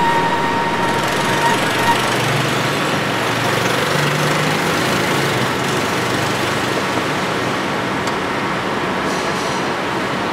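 Steady city traffic noise, an even hum and hiss of engines and tyres. A faint held tone fades out in the first two seconds.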